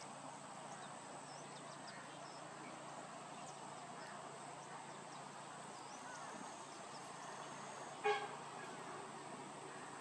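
Steady outdoor background noise with a thin, steady high tone and a few faint, short high chirps, broken about eight seconds in by a single brief honk.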